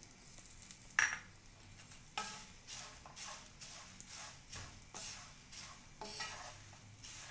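Wooden spatula stirring dry flattened rice flakes in a pan, a repeated scraping rustle about twice a second from about two seconds in. A single sharp tap comes about a second in.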